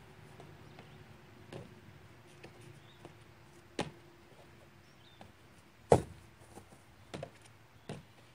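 Feet landing on and pushing off a wooden picnic table: scattered thumps and knocks, a sharp one about four seconds in and the loudest about six seconds in.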